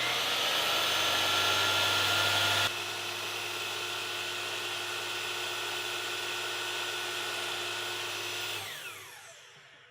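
Delta Cruzer miter saw motor starting with a rising whine, running steadily, then winding down with a falling whine near the end. The level drops abruptly about three seconds in.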